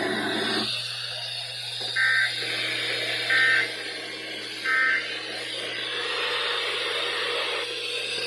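Emergency Alert System SAME data bursts: three short, shrill two-tone digital chirps about 1.4 seconds apart over radio hiss. Bursts this short are the end-of-message code that closes an alert or test.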